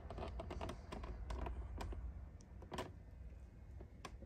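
Faint, irregular light clicks and taps over a low steady hum: handling noise as the wiring and plastic around it are moved about.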